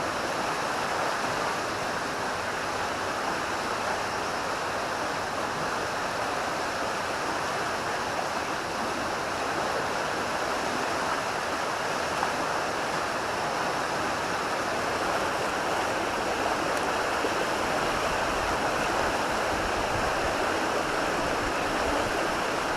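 River current running high, a steady unbroken rush of flowing water.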